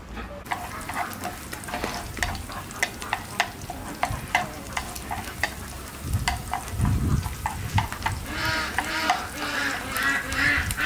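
Sliced garlic sizzling and crackling in hot oil in a frying pan, stirred with wooden chopsticks, with many sharp pops. A wavering pitched sound joins in over the last few seconds.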